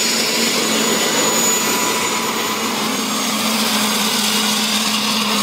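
Homemade minibike's turboshaft engine running, a steady turbine whine over loud rushing noise.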